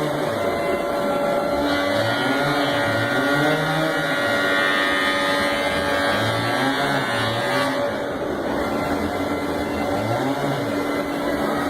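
Chainsaw engine running and revving up and down over and over, as in carving wood. A higher whine rides over it from about two seconds in until nearly eight seconds.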